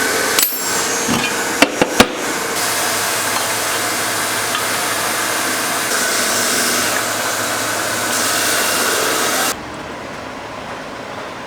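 A power tool running steadily and loudly, with a few sharp metallic knocks in the first two seconds. It cuts off abruptly near the end, leaving a quieter steady hum.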